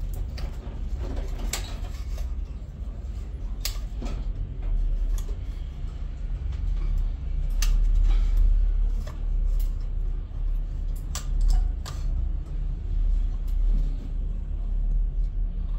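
Steady low rumble with scattered light clicks and taps of small tools being handled on a workbench.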